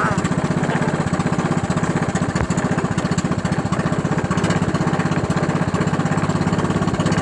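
Small fishing boat's engine running steadily under way, a fast even beat of firing pulses.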